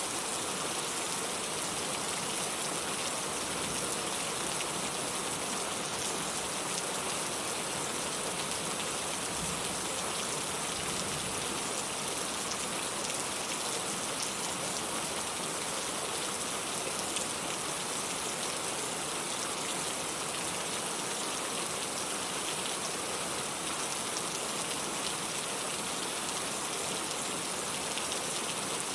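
Steady rain falling: an even, unchanging hiss with a few faint drop ticks.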